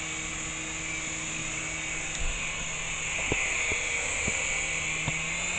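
Syma S107 mini coaxial RC helicopter's small electric motors and rotors whirring steadily in a hover, run at high throttle because the battery is nearly flat. A few faint ticks come in the second half.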